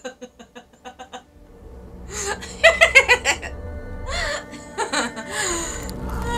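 A woman's giggling trailing off in short breathy bursts, then low droning film music swelling in, with more bursts of her laughter over it a few seconds in.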